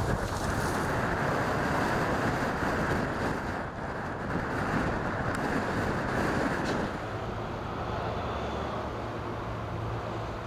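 Wind rushing and buffeting the microphone, a steady roar that eases slightly about seven seconds in.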